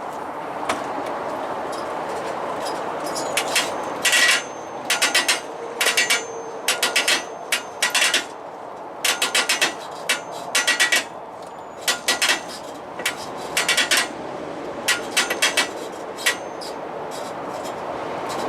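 Repeated bursts of rapid, squeaky creaking from under the hood of a semi truck, starting about four seconds in and coming roughly once a second in irregular groups. The owner puts the squeak down to U-bolts left loose after an alignment.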